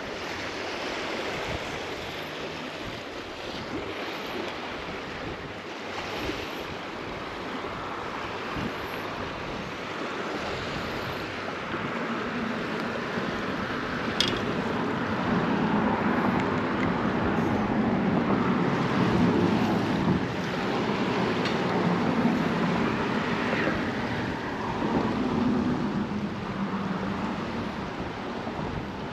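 Wind buffeting the microphone over the wash of open sea water, a steady rushing noise that swells for several seconds in the second half. A single sharp click about halfway through.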